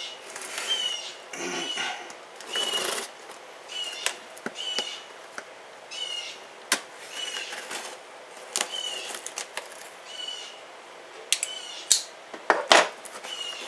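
Utility knife slicing the tape and cardboard of a shipping box in repeated scraping strokes, with a few sharp clicks near the end as the flaps come free. A short high chirp repeats about once a second.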